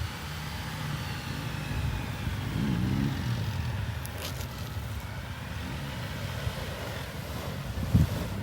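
Off-road vehicle crawling slowly along a rough trail: a steady low rumble with a faint whine that rises and falls, a brief hiss about four seconds in, and a knock near the end.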